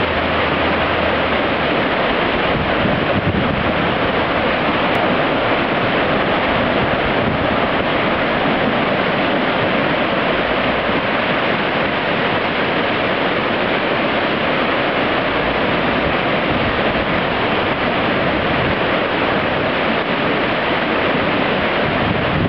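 Peabody River in flood from Tropical Storm Irene: a loud, steady rush of fast, overflowing floodwater, with rocks being carried along the riverbed.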